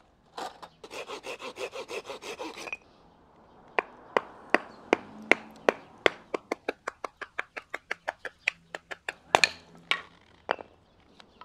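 A small hand saw cuts through a branch in quick strokes, about six a second, for a little over two seconds. Then comes a long run of sharp wooden knocks that speed up to about four a second: a knife being batoned down through a stick to split it into kindling.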